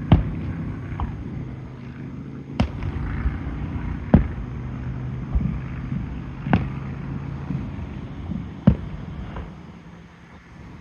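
Fireworks display: aerial shells bursting with sharp booms every couple of seconds, five loud ones and smaller pops between. A steady low hum runs underneath and fades out about seven and a half seconds in.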